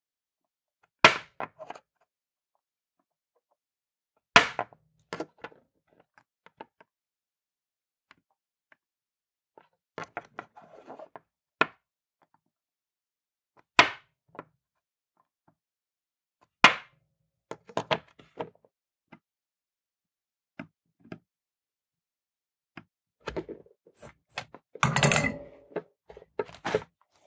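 A circuit board rapped sharply against a wooden tabletop to fling off solder just melted from a bridge between pins: single sharp knocks about a second in, at four and a half seconds, at fourteen and at seventeen seconds, each followed by a few small clicks. A denser run of knocks and handling clatter comes near the end.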